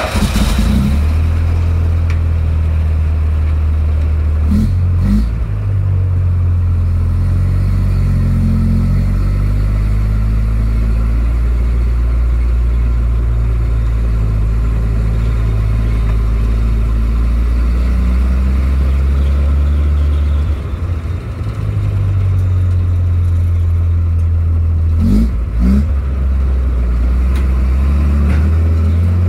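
A 1942 Autocar M16A1 half-track's White 160AX straight-six petrol engine runs under load as the vehicle drives off, heard from inside the open cab. The engine note rises and steps as it pulls. There is a clunk with a change of note about 5 seconds in and again near the end, like gear changes, and the engine briefly eases off about two-thirds of the way through.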